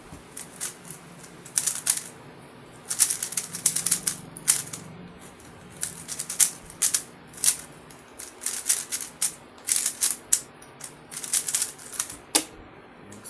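MoYu WRM V10 speedcube's plastic layers clacking in quick bursts of turning, with short pauses between. The cuber finds the cube needs lube.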